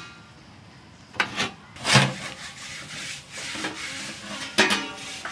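Aluminium pot lid scraping and clinking against the pot's rim as it is gripped with a cloth and lifted: a few short scrapes with a slight metallic ring, the loudest about two seconds in.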